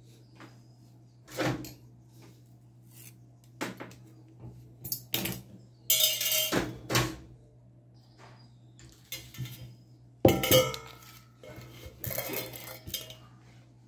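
Metal parts being handled on a cloth-covered table: scattered clinks and clatters of wire and a TV splitter, then a stainless steel lid set down with a ringing clank about ten seconds in, the loudest sound. A steady low hum runs underneath.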